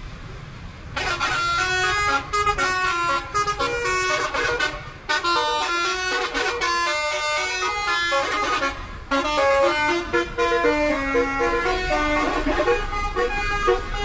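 A bus's telolet horn, a set of air horns played as a tune, sounding a string of short stepped notes in several pitches at once. It starts about a second in and keeps playing with brief breaks.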